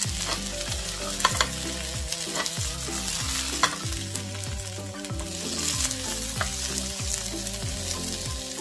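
Green beans and minced garlic sizzling in hot olive oil in a nonstick frying pan. They are being stirred with a wooden spoon that knocks against the pan several times.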